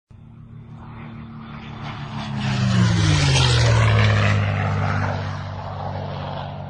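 Piper PA46 Meridian's turboprop engine and propeller. A low drone swells to a loud peak, dropping in pitch as it does, then settles into a steady drone.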